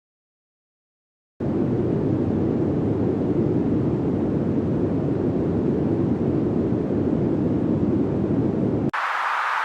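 Synthetic noise sound effect: after a silence it starts abruptly as a steady, dark, low-pitched noise, holds for about seven seconds, then switches sharply to a brighter, higher hiss near the end.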